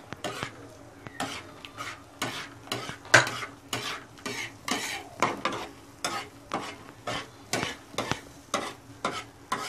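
Flat metal spatula scraping and stirring a thick pea-and-potato ragda on a flat metal tawa, in repeated short scrapes about two a second, with the mixture sizzling on the heat.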